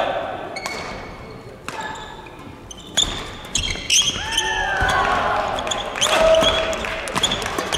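Doubles badminton rally in a hall: sharp racket strikes on the shuttlecock at irregular intervals, with court shoes squeaking on the floor between the shots.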